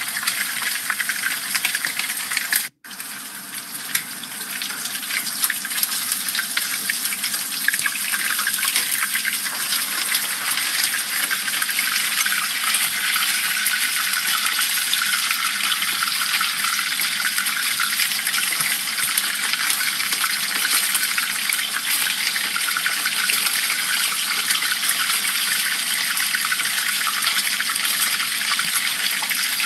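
Hot oil sizzling and bubbling steadily around two whole dorado fish deep-frying in a pan, with a short cut-out to silence about three seconds in.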